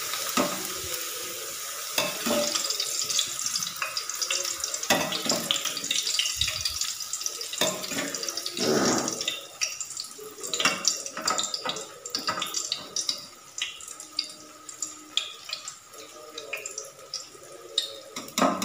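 A papad deep-frying in hot oil in a steel pan: a dense, steady sizzle through the first half. It thins out about halfway into scattered crackles and pops as the papad is lifted out.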